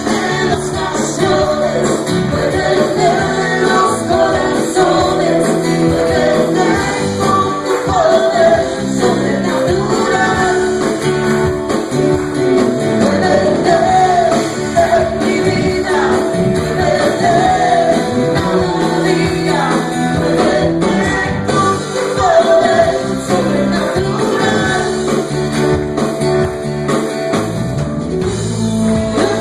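Live amplified praise music: a man and a woman singing into microphones over keyboard and guitar accompaniment.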